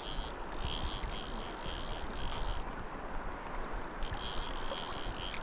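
River water rushing steadily. Over it an insect chirps in a regular rhythm, about two short high chirps a second, pausing for a moment in the middle.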